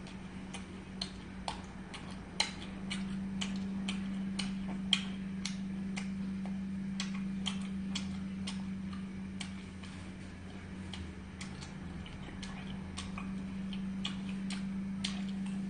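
Scattered sharp, light clicks, irregular and at times several a second, over a steady low hum.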